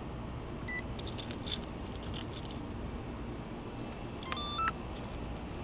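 Talaria XXX electric dirt bike being switched on: clicks from the key and switches, a short beep under a second in, then a quick run of electronic beeps at different pitches near the end as the bike powers up, over a steady outdoor rumble.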